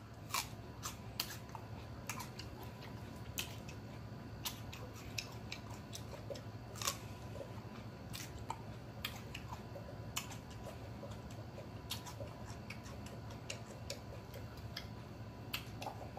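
Close-miked chewing of a jalapeño pepper: crisp, irregular crunches and wet mouth clicks, a few every second, over a steady low hum.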